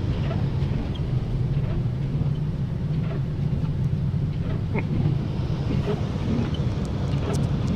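A car driving, heard from inside the cabin: a steady low drone of engine and road noise, with a few faint clicks.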